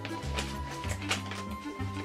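Background music: a bass line changing notes about twice a second under light percussive hits.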